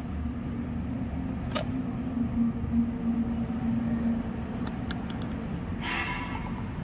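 Hands handling and unscrewing the plastic-and-metal DEF (urea) filter housing on a truck's DEF pump unit: a few sharp clicks and a short squeak near the end, over a steady low hum.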